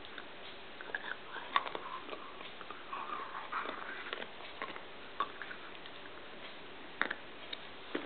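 A young standard poodle chewing a plastic ring toy: irregular clicks and scrapes of teeth on the toy, busiest in the first few seconds, then a few sharp single clicks.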